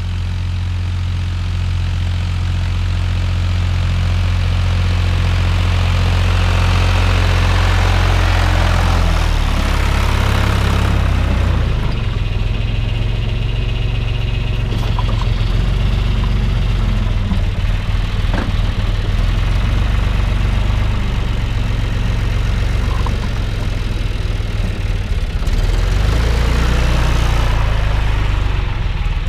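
Tractor engine running steadily while pulling a plough, its note shifting about a third of the way in and again near the end.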